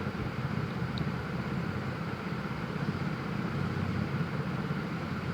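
Curry leaves and ginger-garlic sautéing in oil in a kadai: a faint, steady sizzle over a constant low hum.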